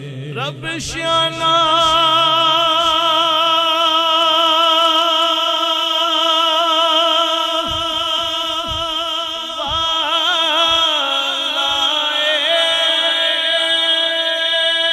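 A male qari's voice, amplified through a microphone, holds one long, wavering melodic note in Quran recitation. About eleven seconds in, the pitch shifts and the recitation line continues.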